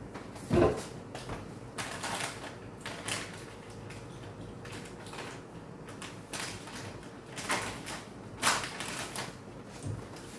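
Irregular small clicks, taps and rustles of someone handling food, utensils and packaging at a table while eating, with a faint steady hum underneath.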